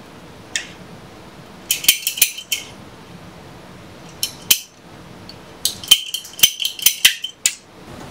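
Hand tool working on PEX pipe, a PEX cutter or cinch crimping tool, giving bursts of sharp metallic clicks and snaps: one click, then quick clusters around two seconds in, near four and a half seconds, and a longer run of clicks from about six to seven and a half seconds.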